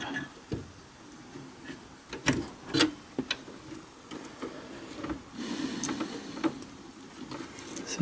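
Sleeved cables being handled and their plastic connectors pushed back onto a server motherboard: several light clicks with soft rubbing in between.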